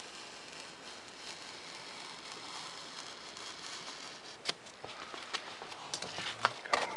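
Hobby knife blade drawn through paper plans, a steady scratchy hiss. From about four and a half seconds in, the paper sheet is handled and shifted, rustling and crackling with several sharp crinkles.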